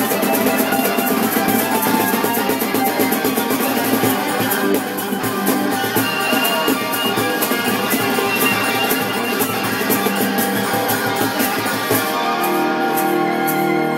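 Live street band playing an up-tempo song with guitar and a steady percussion beat. Near the end the beat drops away and long held notes carry on.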